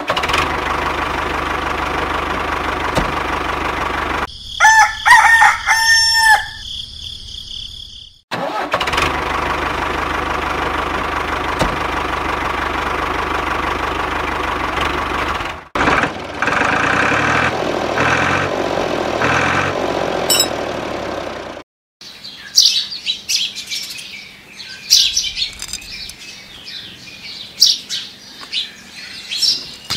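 The small electric motor of a miniature toy tractor whirs steadily, broken by a rooster crowing about four seconds in. In the last third, birds chirp over the outdoor background.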